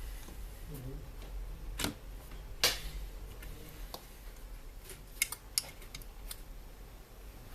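Scattered sharp clicks and knocks of a monitor's plastic casing and tools being handled during disassembly, the loudest about two and a half seconds in and two quick ones near the middle, over a steady low hum.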